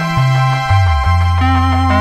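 Background music with a steady bass line and sustained keyboard notes.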